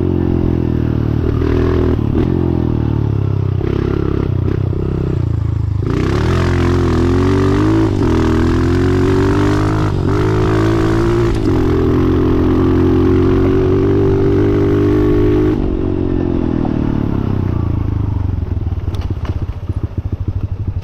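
Honda CRF125F's 125 cc four-stroke single with a full FMF exhaust, revving up and down as the bike is ridden. About fifteen seconds in the revs fall away and the engine slows to a low putter with its separate firing beats audible near the end.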